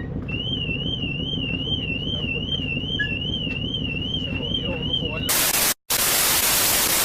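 A high electronic tone warbles up and down about twice a second over a low rumble, like an alarm or siren. About five seconds in it gives way to a loud burst of static hiss, broken by a brief dropout.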